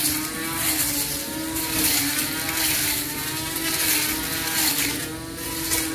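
Cordless battery-powered electric grass trimmer running while cutting grass: a steady motor whine whose pitch wavers slightly as the head meets the grass, over the hiss of the spinning cutter.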